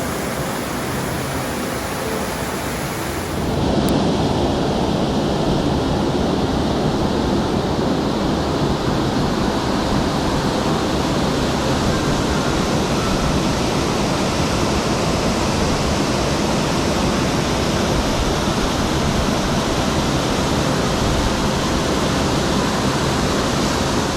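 A waterfall's steady rush of falling water. It grows louder and fuller about four seconds in.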